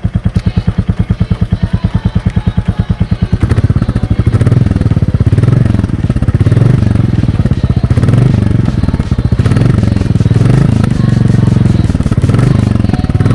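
Motorcycle engine running after a cold start, with a steady, even beat of firing pulses. From about three and a half seconds in it is revved and runs louder and less even, the pitch rising and falling.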